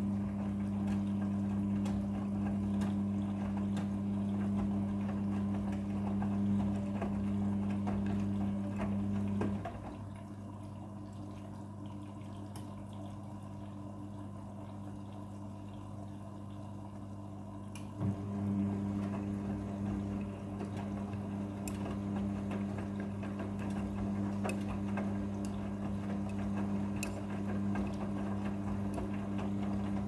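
Midea front-loading washing machine taking in water for its second fill while the drum tumbles the laundry, with a steady motor hum. About ten seconds in, the drum stops and the hum falls away, leaving only the quieter water sound. About eight seconds later the drum starts turning again with a click.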